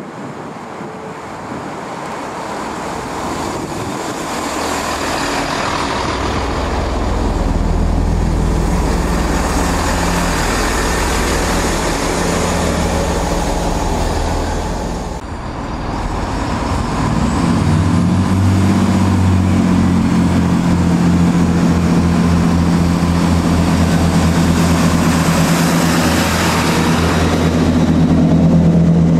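Great Western Railway Networker Turbo diesel multiple unit drawing into the platform and passing close by, growing louder over the first several seconds. From about halfway through, the throbbing note of its underfloor diesel engines dominates as the coaches go past.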